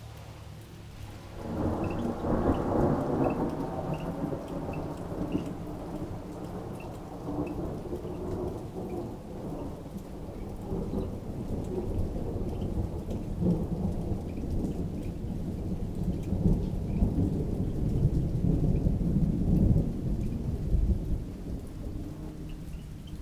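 A long roll of thunder rumbles in over rain about a second and a half in, swells again past the middle, and dies away near the end.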